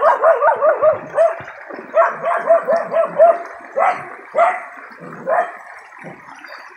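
A dog yapping in quick runs of short barks, about five a second, then a few single barks before it falls quiet.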